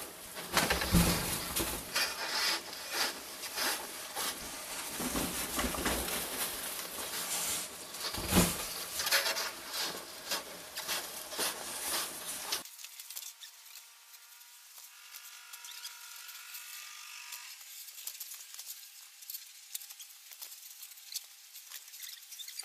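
Hand snow pusher scraping and pushing through packed snow, with crunching crackles and a couple of heavier thumps. About halfway through it cuts off abruptly, leaving only a faint, thin hiss.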